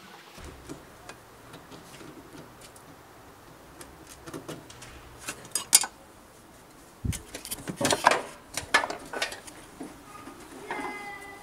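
A small metal hand tool clicking and clinking against the fuel-gauge sender terminal on a steel fuel tank, with a few sharp metallic ticks about five and a half seconds in. From about seven seconds on, louder irregular knocks and scrapes as the tank and its fittings are handled.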